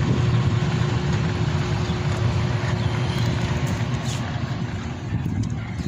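Evaporative swamp cooler running, a steady rushing blower noise with a hum that stops shortly before the end.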